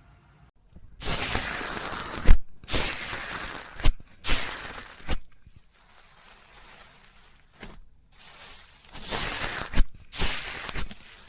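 Slime being pressed and worked by hand, making bursts of crackly noise with a few sharp pops, quieter in the middle and picking up again near the end.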